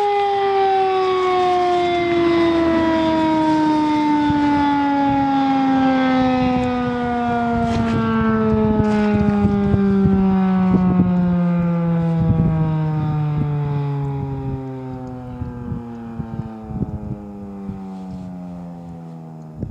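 Federal Signal 2001 electromechanical warning siren winding down after its test, its single tone falling steadily in pitch and fading toward the end.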